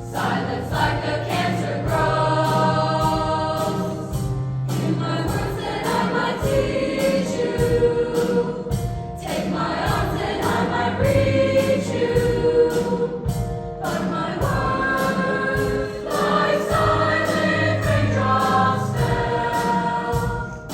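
Junior high girls' choir singing sustained harmonies over an accompaniment with a steady beat.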